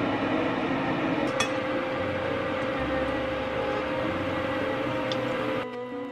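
A steady hiss with a faint high tone in it, holding level and then cutting off suddenly about five and a half seconds in, over soft background music with a low bass line.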